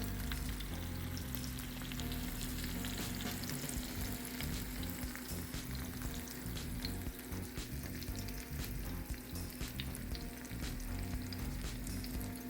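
Egg-battered slices of French toast sizzling in a hot frying pan, a steady hiss full of small crackles and pops, with a steady low hum underneath.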